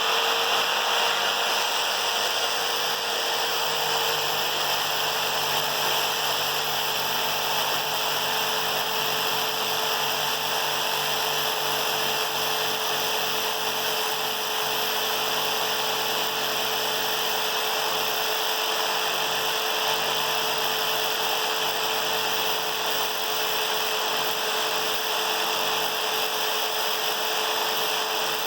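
Corded jigsaw fitted with a new Diablo blade, running steadily at full speed with a constant motor whine while the blade saws through a wooden board that has knots in the cut line.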